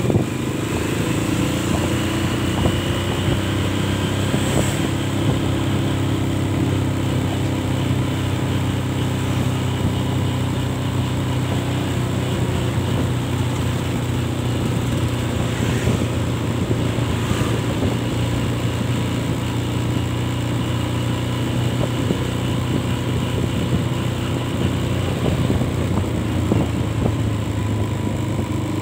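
Motorcycle engine running steadily while riding at an even pace, a continuous drone mixed with the rush of air and road noise.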